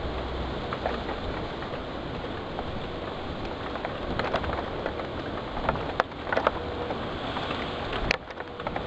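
Heavy rain and wind of a severe thunderstorm: a steady rushing noise with sharp ticks and taps, the loudest about six seconds in and just after eight seconds.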